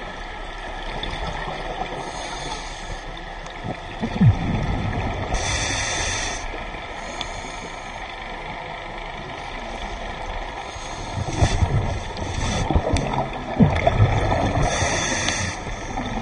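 Underwater diving-camera sound: a steady wash of water noise with a scuba diver's breathing through the regulator, a hiss of breath about a second long twice, and low bubbling rumbles of exhaled air with a few knocks.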